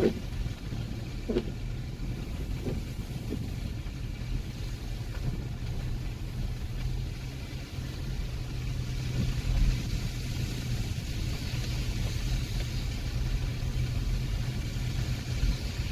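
Street traffic: a car engine running steadily with a low hum, and the hiss of a passing car's tyres swelling from about ten seconds in.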